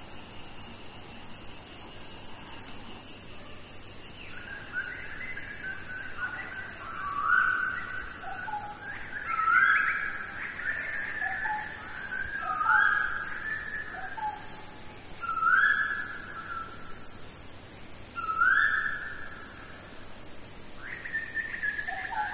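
A steady high-pitched insect drone, with a bird repeating a short rising whistled call every two to three seconds from a few seconds in.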